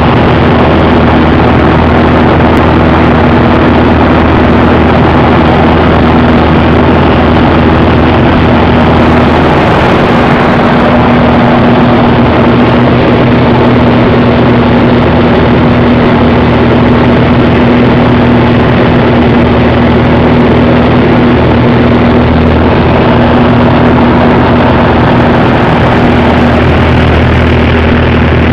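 Piston engine and propeller of a light aerobatic biplane running steadily at cruise power, heard from inside its cockpit as a loud, even drone with a constant low hum under heavy wind and propeller-wash noise.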